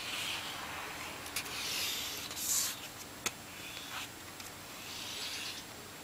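Synergy 89A 72 mm inline skate wheels rolling and scraping on a hard court surface in hissing swishes that come and go, the loudest about two and a half seconds in, with two sharp clicks about a second and a half and three seconds in.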